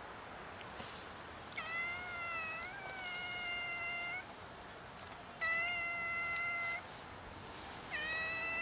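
A tabby-and-white stray cat meowing four times, each meow long and held at a steady pitch, calling for attention.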